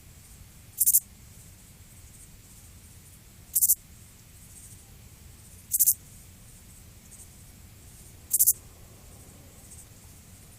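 A high-pitched insect chirping in short buzzy trills, each about a quarter second long, repeating every two to three seconds over a faint low hum.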